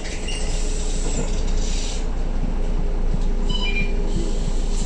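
Cabin ride noise of a MAN A22 single-deck bus on the move: steady low road and drivetrain rumble with a held steady hum, and a short high-pitched squeal about three and a half seconds in.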